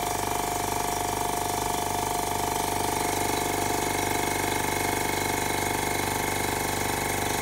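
MAX AK-615P portable electric air compressor (690 W motor) running smoothly under test: a steady hum with a light, regular pulsing of about four beats a second.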